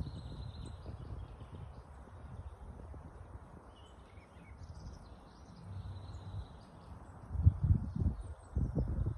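Small birds chirping, with short high calls on and off, over a low rumbling noise that becomes louder and more uneven near the end.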